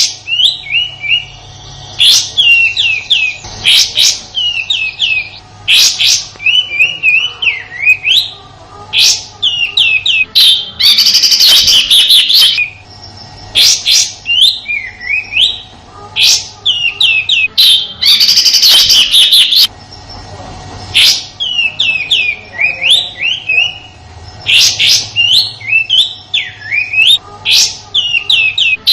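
Kapas tembak (white-shouldered triller) singing its rough 'shooting' song, the 'tembakan kasar' that keepers use as a training recording: loud bursts of quick, sharp, high notes and short hooked whistles, repeated with brief pauses between phrases.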